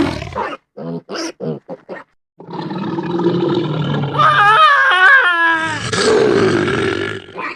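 Animal sound effects: four or five short grunts, then after a brief pause a long, loud, growling call whose pitch wavers and falls in steps about halfway through.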